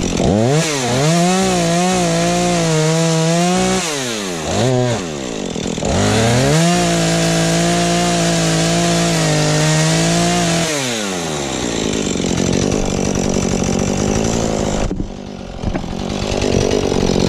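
Husqvarna 435 two-stroke chainsaw revving up and cutting into a black pine trunk for about three seconds, dropping back, then a second, longer cut of about four seconds at full throttle. After that it falls to idle.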